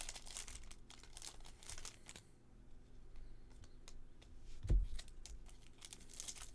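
Baseball card pack wrappers being torn open and crinkled, with cards rustling and clicking as they are handled. A run of rustling in the first two seconds, scattered small clicks, and a single soft thud about halfway through.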